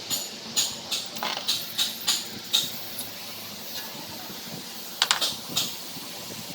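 Sharp metallic clicks and clinks of brake parts and hand tools being handled at a four-piston front brake caliper while the pad pin and worn pads are taken out. They come as a quick run in the first two and a half seconds, then a few more about five seconds in.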